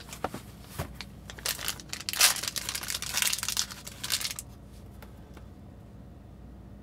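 Small foil blind-bag packet crinkling and tearing as it is pulled open by hand, in quick dense crackles that stop about four and a half seconds in.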